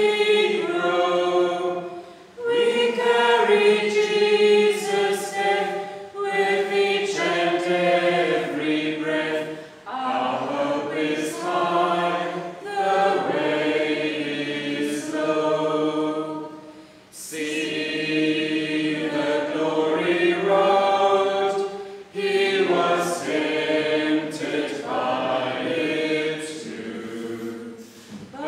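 Church congregation singing a hymn, phrase by phrase, with short breaks for breath between the lines.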